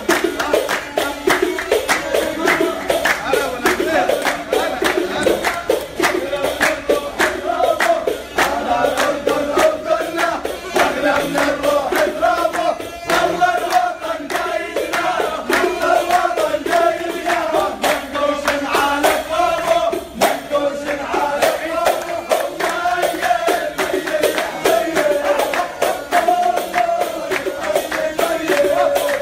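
Live Jordanian folk music: a group of men singing and clapping in a steady beat, over a wind instrument holding a wavering, ornamented melody line.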